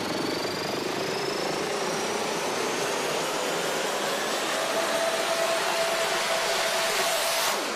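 Intro sound effect: a steady rushing noise with a faint whistle slowly rising in pitch. A held tone joins about halfway, the noise grows brighter, and it all cuts off suddenly near the end.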